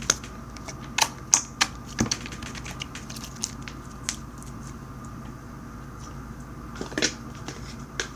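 Scattered sharp clicks and taps as slimes and their containers are handled, over a steady low hum.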